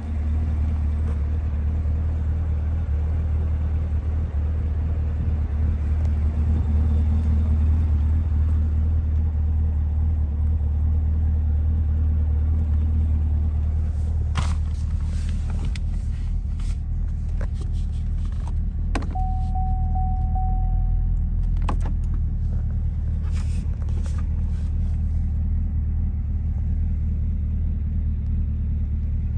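Supercharged 6.2-litre LT4 V8 of a Chevrolet Camaro ZL1 idling with a steady low rumble. Several sharp clicks come in the second half, and a short steady tone sounds for about a second and a half near the middle.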